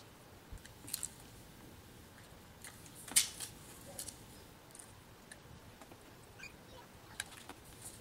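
Faint, scattered clicks and taps of small screws and a metal laptop hard-drive caddy being handled and fitted, with one sharper click about three seconds in.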